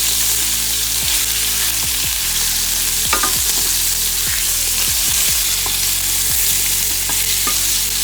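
Oxtail pieces searing in very hot olive oil: a steady sizzle with scattered crackles and pops of spitting fat.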